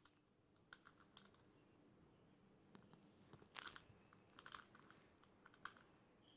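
Near silence with faint, scattered clicks of a plastic Rubik's Cube being handled and turned, a few grouped together in the middle.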